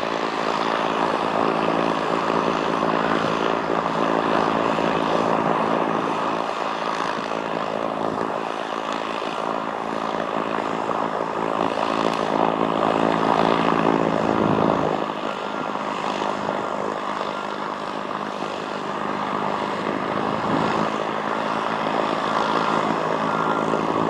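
Piper PA-28-181 Archer's four-cylinder Lycoming engine and propeller running steadily at high power, a continuous drone; the level eases slightly about fifteen seconds in.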